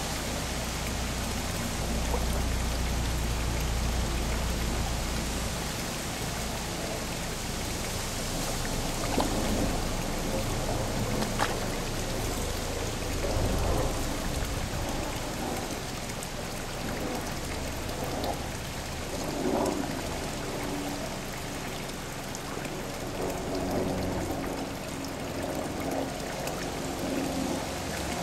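Steady splashing of water pouring into a garden pond, with koi now and then splashing at the surface as they take floating food pellets.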